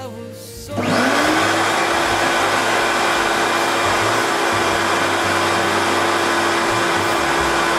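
Shop vacuum switched on about a second in, its motor winding up to speed and then running steadily, blowing air through a cone-shaped venturi tube: a loud rush of air with a steady motor whine.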